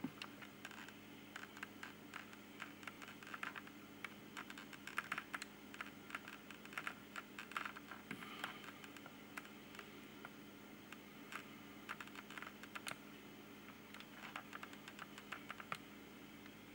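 Computer keyboard typing: faint, irregular key clicks in quick runs over a steady low hum.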